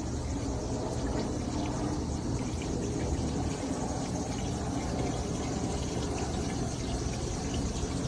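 Water swirling and churning steadily in a glass-cylinder vortex fountain, driven by a pump at its base.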